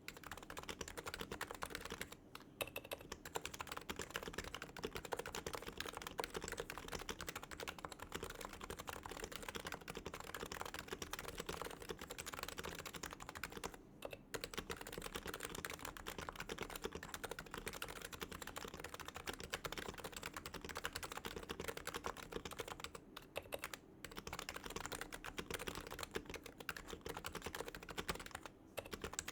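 Continuous fast typing on a Realforce TKL R2 keyboard with silent 45 g Topre electro-capacitive switches and ivory keycaps: a dense run of soft, muted key presses, broken by a few brief pauses.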